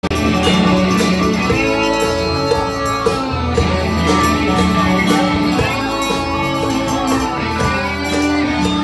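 Live rock band playing: electric guitars, electric keyboard and a drum kit, with no singing.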